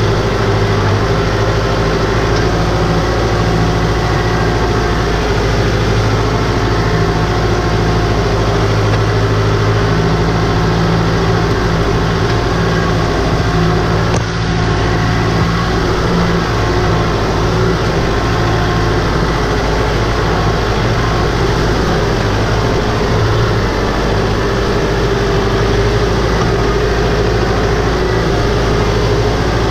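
Farm tractor's diesel engine running steadily at a constant pace as the tractor is driven through shallow floodwater and mud.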